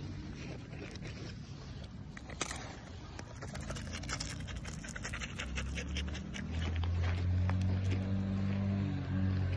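Sika deer sniffing and puffing breath right at the microphone, its nose clicking and bumping against the phone in a quick run of clicks. About halfway through, a low steady hum comes in and becomes the loudest sound.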